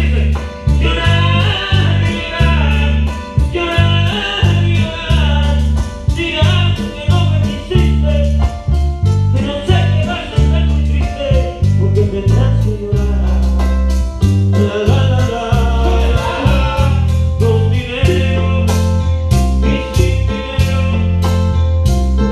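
Live band playing amplified music with a lead singer, a heavy bass line and a steady percussion beat; the vocals come in phrases of a couple of seconds each.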